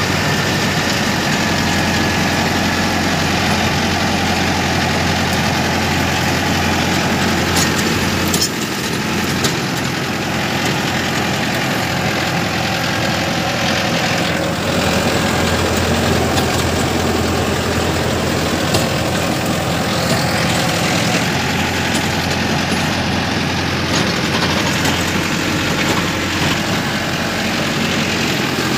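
Tractor's diesel engine running steadily, with a few sharp clicks about eight seconds in.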